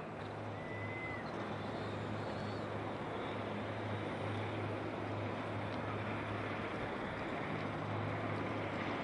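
Distant fireboat under way: a steady low engine drone over a wash of wind and water noise, with a short faint high whistle about a second in.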